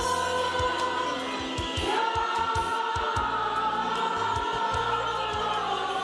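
Church choir singing a slow liturgical chant in long held notes, moving to a new note about two seconds in.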